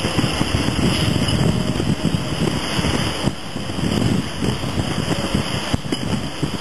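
Big-rig truck's engine running as it drives along the road, mixed with gusty wind rumble on the microphone.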